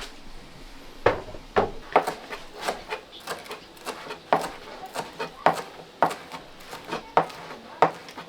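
Irregular sharp knocks and scrapes of kitchen utensils, about one or two a second.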